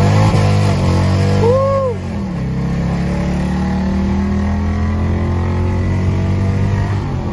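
Car engine running with a steady low drone, a little louder for the first two seconds and then settling. A brief rising-and-falling tone sounds about a second and a half in.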